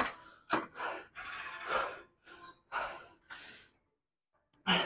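A man breathing hard and gasping for air right after a hard drop set on the lat pulldown, about six heavy breaths in the first few seconds. A sharp clack right at the start.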